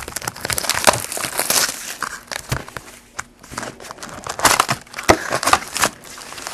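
Cellophane shrink-wrap crinkling and a cardboard trading-card box being handled and opened, in irregular crackles, rustles and scrapes, loudest in bunches about a second in and again past the middle.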